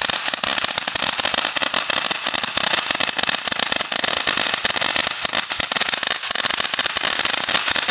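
Dominator Jungle King firework fountain burning: a loud, steady hiss of the spark jet, packed with rapid irregular crackles and pops.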